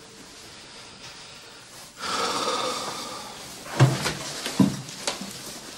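A man's long, breathy exhale lasting about a second and a half, followed by three short knocks.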